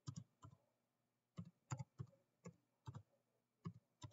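Faint computer keyboard keystrokes as a short word is typed: about ten separate, irregularly spaced key taps.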